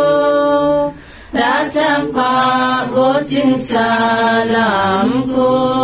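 A group of women singing a welcome song together in unison, unaccompanied, with long held notes and a short pause for breath about a second in.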